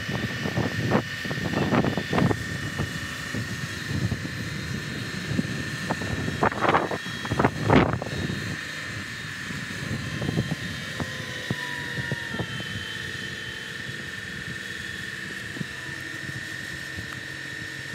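Truck-mounted crane's engine running steadily while it holds and swings a manufactured-home section, with a steady high whine over the engine. Gusts of wind buffet the microphone, strongest about a second or two in and again around seven to eight seconds in.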